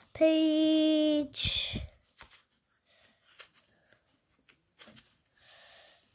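A long, drawn-out spoken word, then faint rustling and soft ticks of paper pages being leafed through by hand in a thick book.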